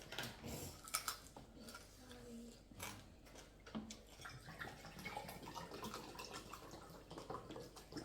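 Faint scattered clicks and light knocks of people eating from plates, over a quiet room background.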